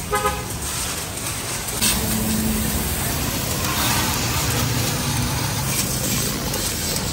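Water jet from a pressure-washer hose spraying against the underside of a car, a steady hiss of water on metal that starts about two seconds in.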